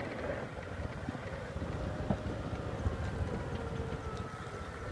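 Small farm tractor's engine running steadily while it hauls a heavily loaded cart.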